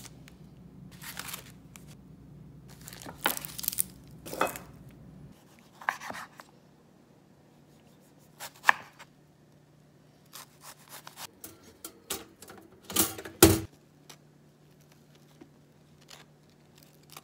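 Kitchen food-prep handling sounds: plastic packaging rustling and crinkling, a knife slicing a tomato on a wooden cutting board, and a knife scraping cream cheese onto a bagel, heard as scattered short rustles, taps and scrapes with a louder clatter about two-thirds of the way through.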